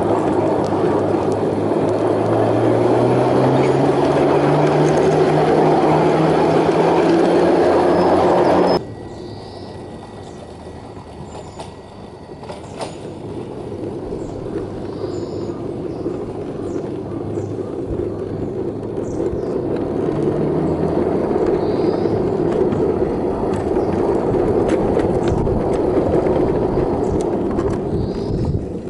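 5-inch gauge railbus running on the track, its motor rising steadily in pitch as it gathers speed. The sound cuts off abruptly about nine seconds in. Then a railbus is heard running again, growing louder as it approaches.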